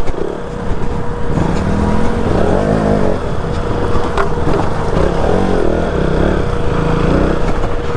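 Motorcycle engine running under a rider's throttle on a rough dirt trail, its pitch rising and falling as the throttle is opened and closed, with one sharp knock about four seconds in.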